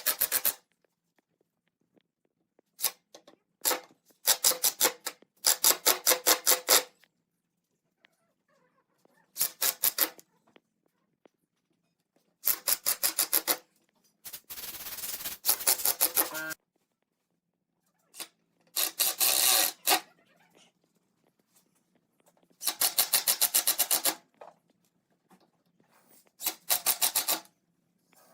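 Short bursts of fast rasping strokes, about seven a second, with silent gaps between the bursts: abrasive hand work on wood.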